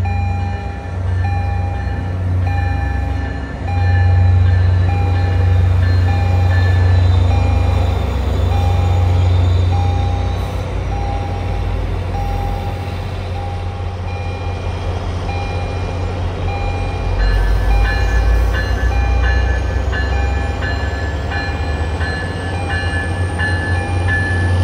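Commuter-train diesel locomotive approaching and passing close by, its engine running low and steady under a bell ringing about once a second. Later the ringing turns quicker and higher.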